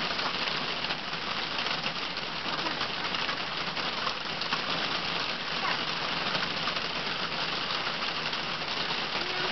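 Steady rain falling, an even patter that does not let up.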